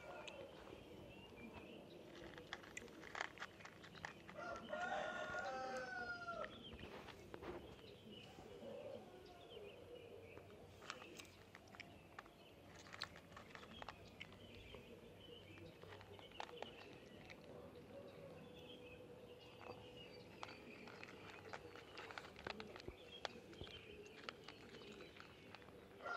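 A cat chewing dry kibble, with many small crisp crunches all through. About five seconds in, a rooster crows once in the background, a call of about a second and a half that is the loudest sound here.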